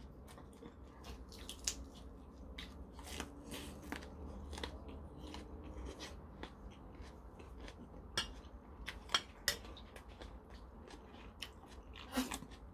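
Close-up chewing of a bite of raw onion: soft, irregular wet clicks and crunches of the mouth, with a few sharper clicks in the second half. A brief sip from a spoon of stew near the end.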